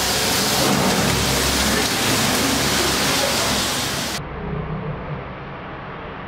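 A large mass of burning safety matches giving a steady hissing rush of flame. A little over four seconds in, the sound cuts to a quieter, duller rush.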